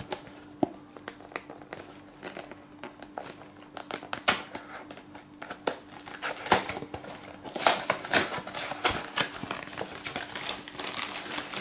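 A small cardboard box being opened by hand, its flaps clicking and scraping, then the plastic bags of model-kit parts inside crinkling as they are pulled out, loudest about eight seconds in.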